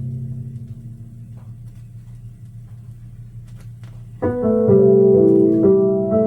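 Music played from a vinyl record: a held chord fades away, then about four seconds in a piano starts a new intro with a run of notes. A few faint clicks of record surface noise show during the quiet part.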